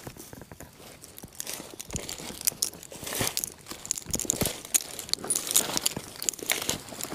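Dry forest leaf litter and soil rustling and crackling under hands as mushrooms are dug out and picked, a dense run of irregular crunches that is busiest in the middle.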